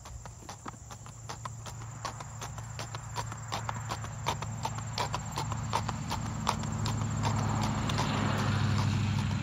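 Horse's hooves clip-clopping on a paved path in an even rhythm, growing louder as the horse comes close. A steady low hum runs underneath.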